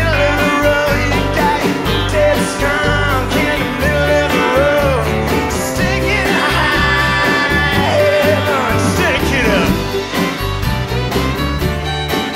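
Live country-rock band playing: acoustic guitar, electric bass, drums, fiddle and pedal steel, with a man singing lead.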